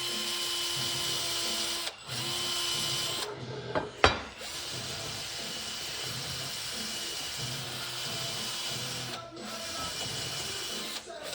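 Small handheld power tool running with a steady high motor whine. It cuts out and restarts several times, with one sharp click about four seconds in.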